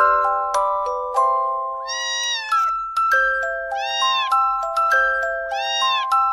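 A tinkling glockenspiel-like music melody, over which a cat meows three times, about two seconds apart, each meow rising and then falling in pitch.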